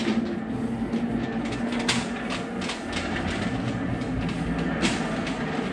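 Loaded engine stand being rolled across a concrete shop floor: the casters rumble and rattle steadily, with scattered sharp clicks and clacks.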